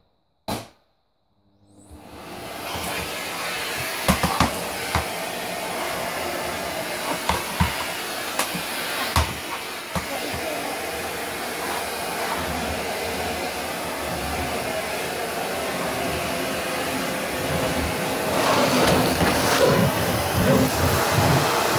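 Canister vacuum cleaner switched on with a click, its motor spinning up about two seconds in and then running steadily as the floor nozzle is pushed over a wooden floor, with occasional knocks. It gets louder near the end.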